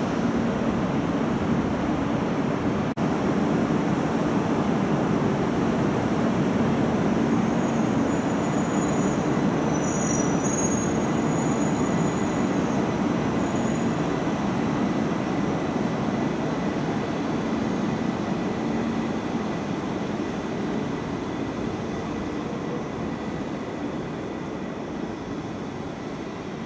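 Tohoku Shinkansen bullet train running along the station tracks: a loud, steady rushing rumble of wheels and air, with a faint steady high tone over it. It fades gradually over the last several seconds.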